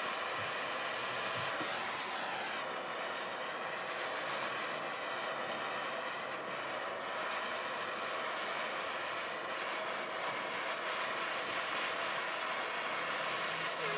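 Two handheld butane torches on cassette gas canisters burning with a steady rushing hiss as their flames scorch the wooden hive box.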